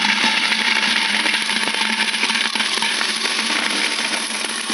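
A large load of quarters pouring and clattering continuously into a bucket, with a steady hum running underneath.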